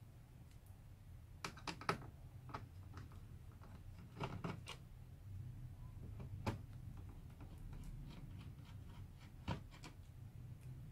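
Faint scattered clicks and taps of a screwdriver against the circuit boards and metal chassis on the underside of a VCR, a few coming in quick clusters of two or three.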